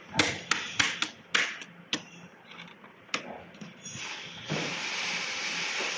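Metal parts of an electric scooter's headset clacking and knocking sharply as the fork, bearing cups and triple clamp are fitted: a quick run of knocks, one more a second later, then a steady hiss from about four seconds in.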